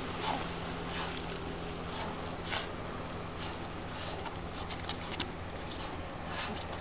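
Short, irregular hissing scuffs and swishes, one or two a second, from two people's quick footwork on rock and their machetes swinging through the air, over a steady low hum.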